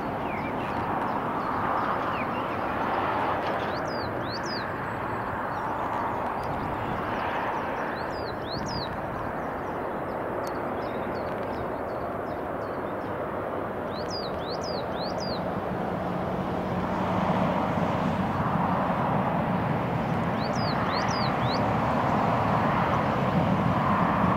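Distant jet airliner engines, a Jet2 Boeing 737 taxiing on the runway, giving a steady rumble that grows a little louder partway through. Small birds chirp nearby in four short groups of quick, high notes.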